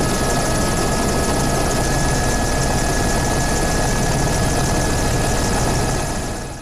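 Helicopter heard from on board: steady, loud rotor and turbine noise, with a fast low rotor beat and several steady high whines.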